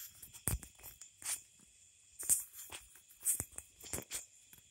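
Irregular sharp clicks and rattles, about a dozen scattered through, over a steady high chorus of night insects.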